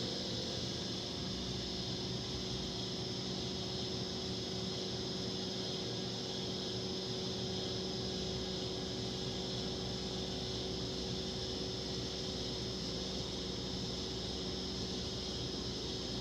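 Hurco VMX50i CNC vertical machining center running under power: a steady machine hum with a few constant tones over an even hiss, with no change in speed or load.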